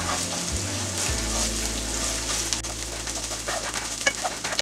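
Chopped onions, mustard seeds, urad dal and grated ginger sizzling in hot oil in a nonstick pan, stirred with a wooden spatula with light scrapes and taps.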